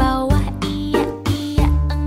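Pop song playing, with a steady beat, a sustained bass line and melodic lines over it.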